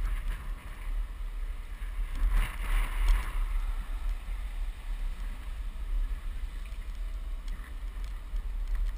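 Car driving slowly, picked up by a camera mounted on the car: a steady low rumble of wind buffeting the microphone and road noise, with a brief swell of hiss about two to three seconds in.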